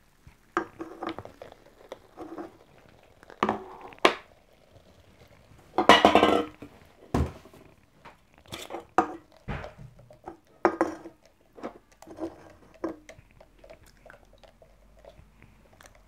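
Close-miked handling of a plastic bottle of frozen strawberry soda, a plastic funnel and an aluminium can: a scattered series of sharp knocks, taps and plastic crinkles, the loudest lasting about half a second about six seconds in.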